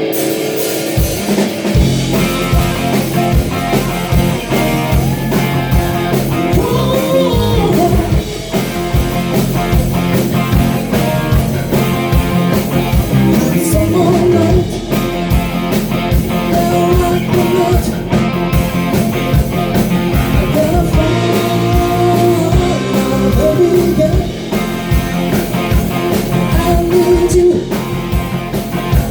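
A live rock band playing a song, with a man singing over drums, bass and electric guitar; the band kicks in about a second in.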